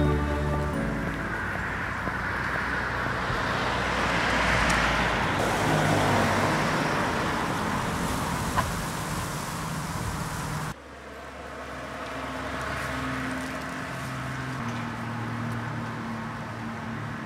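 Outdoor road-traffic noise: a steady hiss that swells and fades as a vehicle passes, peaking about four to five seconds in, under faint background music. The traffic sound cuts off suddenly about ten seconds in, leaving a quieter hiss with the music.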